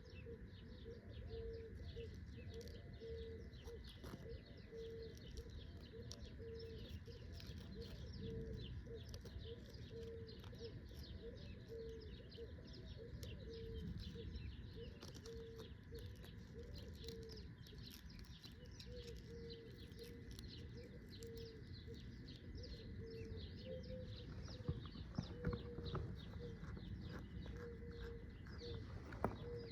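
Birds calling: many quick high chirps, with a short low note repeated about once a second, over a steady low rumble.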